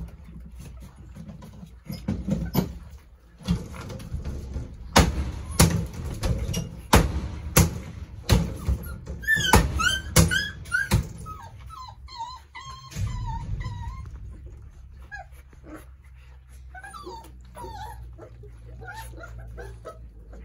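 Dobermans whimpering and yipping in short high whines that bend up and down, over a run of sharp knocks and clatter in the first half.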